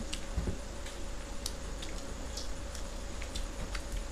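Two people eating by hand, chewing and smacking their mouths, with small irregular clicks scattered throughout over a faint steady hum.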